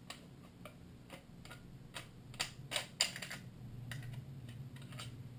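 A Browning Auto-5 shotgun being handled after a misfire: a run of about a dozen irregular metallic clicks and light clacks, the loudest around two and a half to three seconds in, over a faint low hum.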